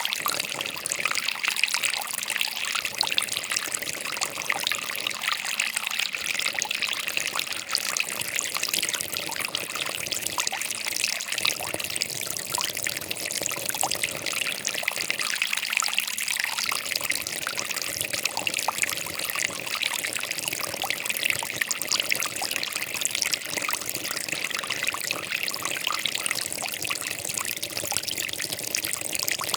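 Water trickling and babbling in a steady, continuous flow with a bright, splashy sound.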